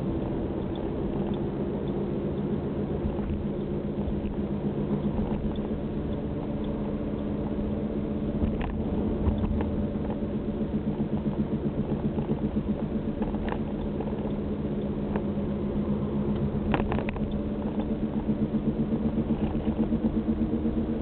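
Volkswagen Passat wheel hub bearing humming while the car drives, a steady drone that pulses in a regular wah-wah rhythm: the sign of a worn hub bearing.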